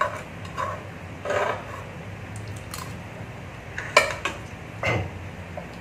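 A spoon and chopsticks scraping and clinking against the inside of a small cooking pot as noodles are scooped out, in scattered short strokes, the sharpest clink about four seconds in.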